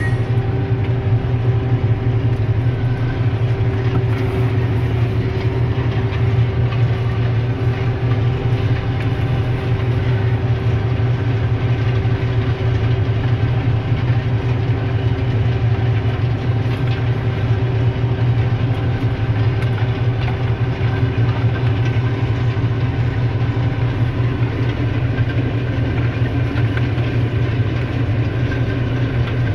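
Deutz-Fahr Agrotron 180.7 tractor's six-cylinder diesel running steadily under load while powering a 4.3 m flail mulcher, heard from inside the cab as an unbroken low drone with a steady whine above it.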